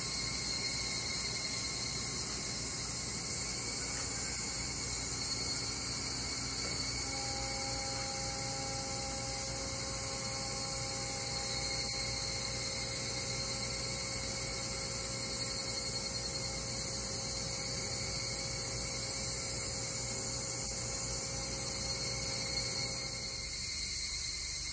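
Steady mechanical hum and whine of the Mount Shosha ropeway station machinery, over a constant high buzz of insects; the machine tones stop near the end.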